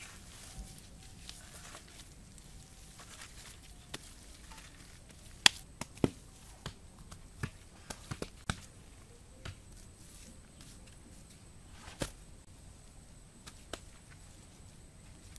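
Irregular sharp taps and knocks, the loudest about five and a half seconds in and another near twelve seconds, over faint steady background noise.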